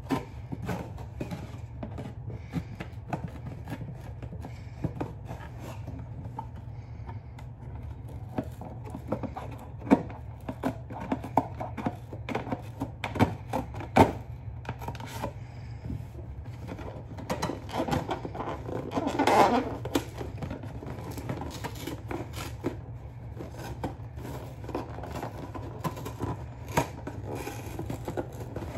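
Scissors cutting into cardboard of a box to cut out a puppet's mouth: irregular snips, clicks and scraping, with a louder stretch of rasping about two-thirds of the way through.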